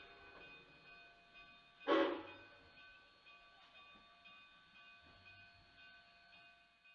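One short toot of a narrow-gauge K36 steam locomotive's whistle about two seconds in. A faint, steady, high-pitched whine runs underneath.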